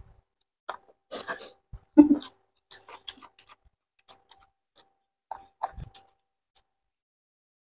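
Mouth and hand noises of eating chicken feet by hand: scattered wet smacks, clicks and crunches of chewing, with a brief low vocal murmur about two seconds in.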